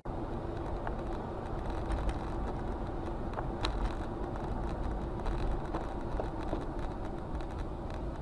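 Faint, steady rumble of a car on the road, with a low hum and a few light ticks.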